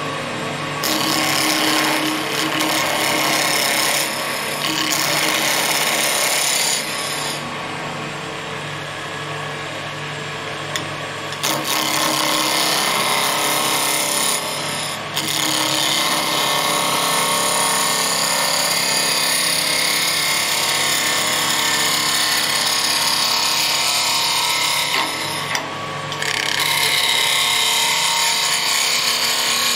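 Spindle roughing gouge cutting a spinning wood blank on a lathe, rounding it: a loud, noisy rush of shavings in long passes with short breaks between them, over the steady hum of the running lathe.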